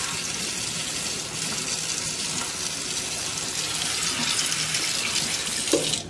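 Kitchen faucet running steadily, its stream splashing onto live blue crabs in a stainless steel sink as they are rinsed.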